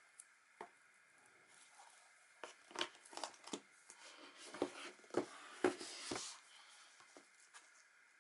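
Faint handling noise as an 8th-generation iPad is set into and lifted out of its cardboard box: a cluster of light knocks and taps with some rustling of packaging in the middle few seconds, and a few single clicks before that.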